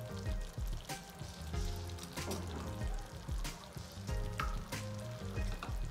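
Thick tomato sauce sizzling and bubbling in a frying pan, with sharp pops about once a second, over background music.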